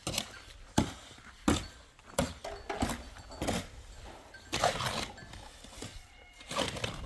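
Several sharp knocks and clatters at irregular intervals, with no steady rhythm, like objects being handled and set down.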